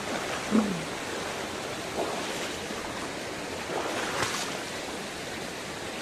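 Shallow rocky river rushing steadily as someone wades through it knee-deep, with a few brief splashes. A short vocal sound comes about half a second in.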